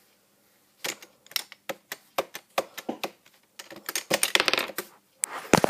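Irregular light clicks and taps of small hard objects, several a second, starting about a second in, with a louder knock near the end.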